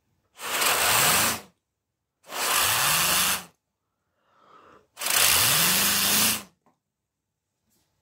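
Three long blasts of air blown at a small turbine made of tin-can blades on a PC-fan generator. Each is a loud hiss with a low hum under it that rises in pitch and levels off as the rotor spins up.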